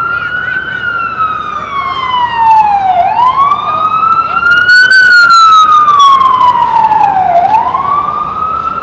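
FDNY fire apparatus siren wailing loudly, its pitch rising and falling slowly in long sweeps of about four seconds each, with the highest point about five seconds in.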